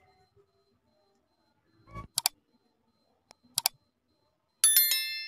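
Mouse-click sound effects: a low thud with two quick clicks about two seconds in and two more clicks about a second and a half later. Near the end comes the loudest sound, a bright ringing notification-bell chime of several tones, as the subscribe bell is pressed.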